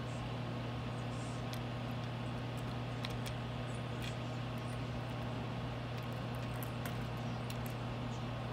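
A steady low hum, unchanging throughout, with a few faint, light ticks here and there.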